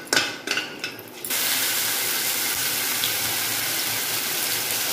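A steel spatula clicks and scrapes against a steel kadai as whole spices fry in oil. About a second in, a loud, steady sizzle starts abruptly: onion-tomato masala paste frying in hot oil.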